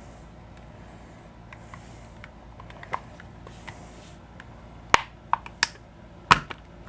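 Plastic shell of an Xbox Elite 2 controller being pried apart with plastic spudgers: light scraping, then a few sharp plastic clicks from about five seconds in as the snap clips let go, the loudest near the end.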